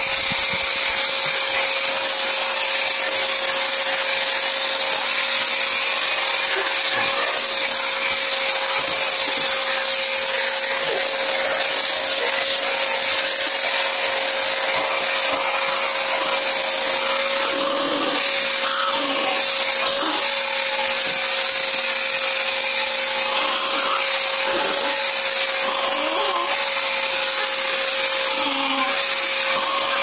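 Canister vacuum cleaner running steadily, with a constant whine over its rushing noise.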